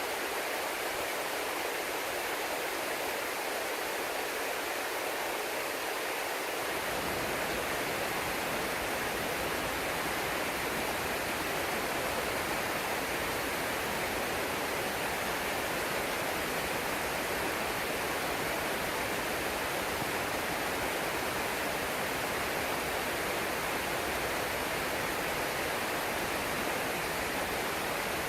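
Waterfall, partly iced over, with water rushing down in a steady, even roar; from about six seconds in the low end of the rush becomes fuller.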